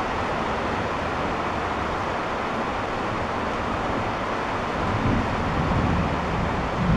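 Steady rushing noise of a heavy thunderstorm rain, with a few low swells between about five and seven seconds in.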